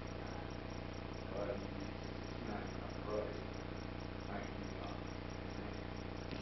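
A man's voice praying, faint and distant, in short scattered phrases over a steady hum and hiss.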